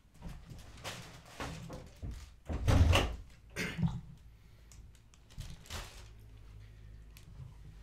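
A door being opened and shut: a series of knocks and clunks, the loudest a heavy thump about three seconds in, followed by a faint steady low hum.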